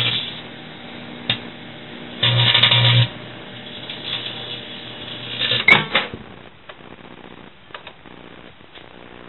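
Microwave oven running with a steady hum while a cell phone inside crackles and arcs. A loud buzzing burst of sparking comes about two seconds in, and a sharp crack with more crackling near six seconds; after that only the hum and a few faint ticks remain.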